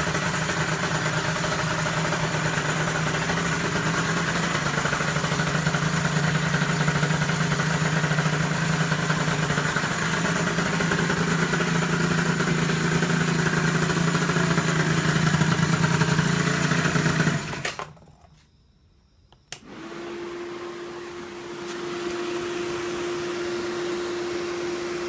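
An engine running steadily with a loud drone and a whirring noise on top. It cuts out about 18 seconds in; after a click, a much quieter steady hum with one clear tone begins.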